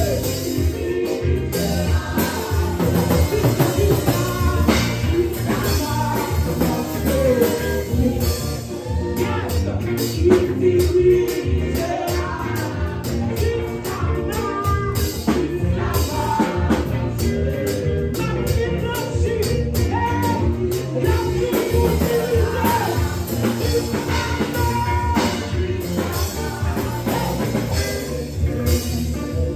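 A women's vocal group singing a worship song into microphones, with a lead voice and harmonies over instrumental backing with a steady beat.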